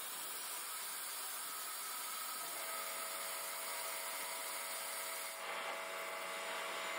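Steady hiss of a blast cabinet gun spraying compressed air and abrasive media onto a brass gas fitting and regulator to clean them. The hiss loses some of its highest part about five seconds in.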